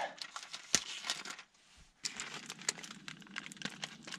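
Plastic film lid of a food tray being pierced and torn open with a knife, crinkling and crackling, with a short pause about a second and a half in.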